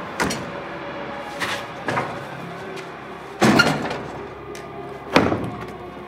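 Doors banging shut again and again: a series of sharp knocks one to two seconds apart, the loudest about three and a half seconds in and another just after five seconds.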